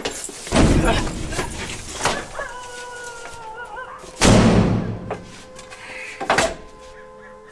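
A door, seemingly a screen door, banging open and slamming shut among several heavy bangs and thuds. The loudest bang comes about four seconds in, with a brief wavering whine just before it.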